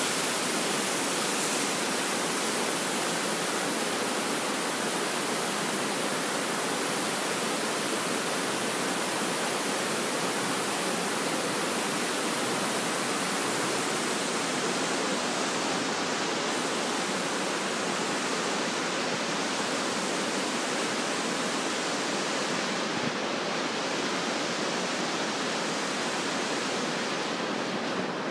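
Rushing river rapids: a steady hiss of white water, its highest part thinning somewhat in the second half.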